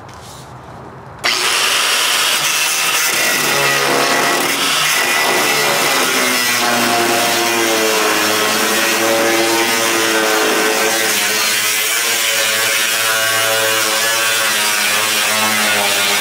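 Angle grinder with a thin cutoff wheel starting up about a second in and cutting into the truck bed's steel plate floor: a loud, steady grinding scream whose motor pitch wavers as the wheel bites into the metal.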